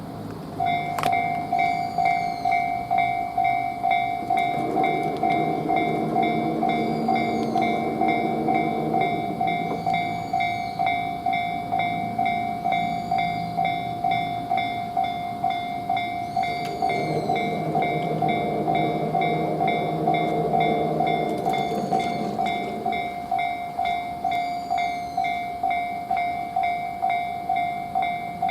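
Japanese railway level crossing's electronic warning bell starting up about half a second in, then ringing steadily with an even 'kan-kan' a little more than once a second. A lower hum joins twice.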